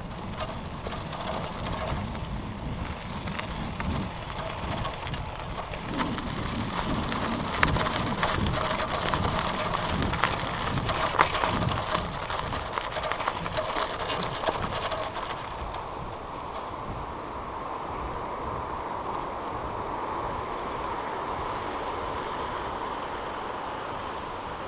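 A bicycle in motion: continuous tyre and road rumble with many small rattles and clicks from the bike. It is loudest through the middle stretch, then runs steadier and a little quieter.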